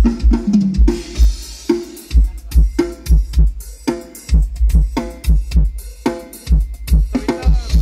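Drum-heavy music played through a car audio system with YSK door midrange speakers and a 10-inch sealed subwoofer box, played as a sound test: a deep kick drum pounds in a steady beat with snare and cymbals over it. The beat drops out briefly twice.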